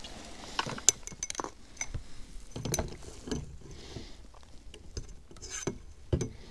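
Irregular small clicks and knocks of fishing tackle being handled close by while a hook is baited by hand.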